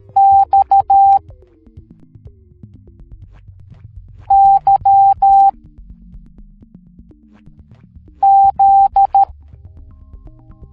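Morse code beeps at one steady pitch, in three groups about four seconds apart, each a single letter of long and short tones: dash-dot-dot-dash, dash-dot-dash-dash, dash-dash-dot-dot, which spell X, Y and Z. Soft synthesizer music plays underneath.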